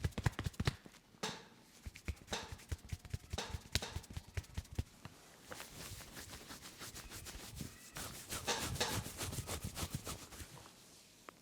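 Hands massaging a head: a few quick slapping strokes right at the start, then rubbing with scattered clicks, and a run of fast tapping strokes for about two seconds near the end.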